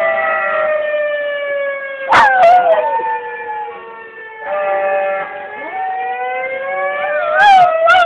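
An emergency siren wails in a long, slow tone that falls and then rises again. A Jack Russell terrier howls along with it twice, first about two seconds in and again near the end.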